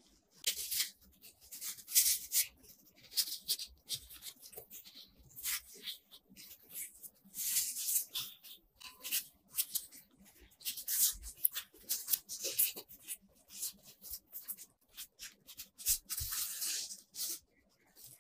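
Disposable plastic gloves and cocoa-dusted rice-flour dough rubbing and rustling as hands wrap the dough sheet around a log of chocolate cream-cheese filling on a wooden board. Irregular hissy brushing strokes stop shortly before the end.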